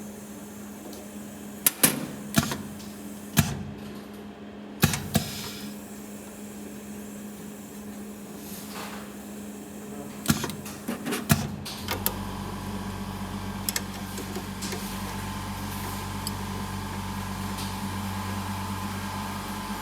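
Metal clicks and knocks from hand work on an ultrasonic wire splicing machine as its head-height screw is loosened and tightened, over a steady electrical hum. About twelve seconds in, a louder steady hum with a higher whine starts up.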